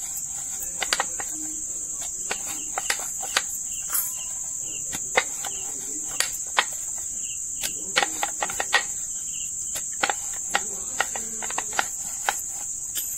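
Wooden rolling pin rolling maida dough thin on a round steel rolling board, with irregular clicks and knocks as the pin bumps and shifts on the metal. A steady high-pitched drone runs underneath.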